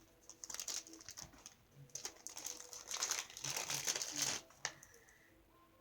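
Packaging crinkling as it is handled and unwrapped by hand, in two stretches of rustling with a pause between, then it stops near the end.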